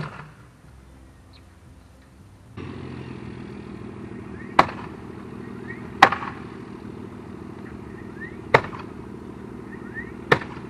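Nails being driven into a wooden privacy fence: a sharp strike right at the start and four more spaced about one and a half to two and a half seconds apart. A steady motor hum starts a couple of seconds in and runs under them.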